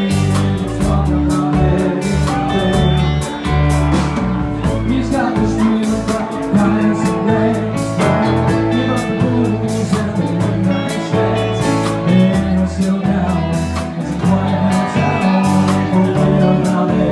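Live band playing amplified music, with drums and electric guitar and a voice singing.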